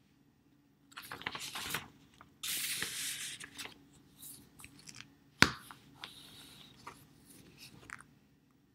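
Irregular rustling and crinkling noises in several bursts, with one sharp click about five and a half seconds in.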